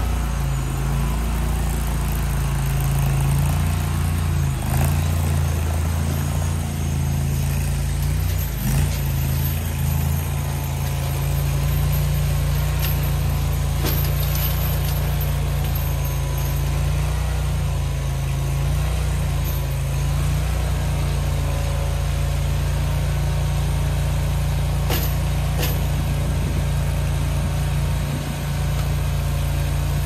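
The 23 hp engine of a two-pump Chinese mini skid steer running steadily, just after a hard start in freezing cold, with a few light knocks now and then.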